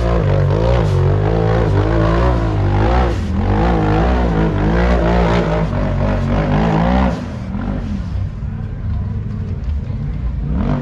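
Side-by-side UTV engine revving hard, its pitch rising and falling again and again, then dropping to a quieter, lower running about seven seconds in.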